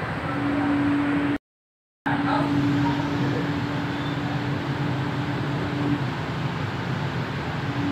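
Cabin noise of a Jaipur Metro train running on its elevated track: a steady rolling rumble with a steady hum over it, which fades out about six seconds in. The audio cuts out completely for a moment about a second and a half in.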